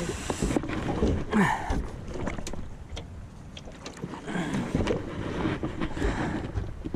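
Knocks, bumps and shuffling footsteps on the aluminum deck of a small fishing boat, with wind buffeting the microphone.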